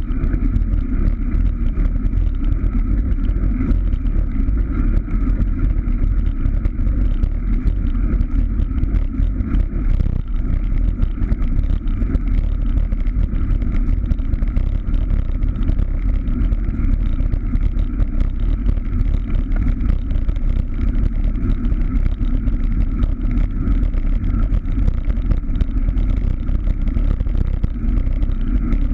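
Steady wind buffeting and road rumble picked up by a camera riding on a moving road bike. It is a deep, unbroken roar that does not change for the whole stretch.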